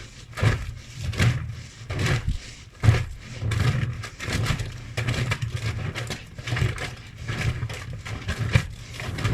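Front-loading washing machine drum turning with its load of wet laundry and suds, under a low motor hum. It makes a rhythmic whoosh about every second at first, then a denser, more continuous churning from a few seconds in.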